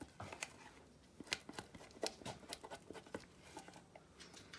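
Spatula scraping sticky sourdough starter out of one plastic food container into another: a faint, irregular run of soft scrapes and clicks of spatula on plastic.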